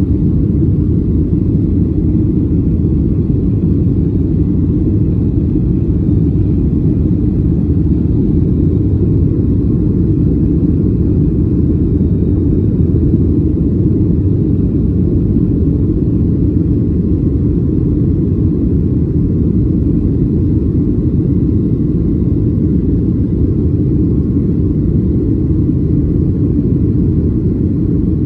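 Steady low rumble inside the cabin of a Boeing 737-800 climbing after takeoff: its CFM56-7B engines at climb power and the rush of air past the fuselage, even and unbroken.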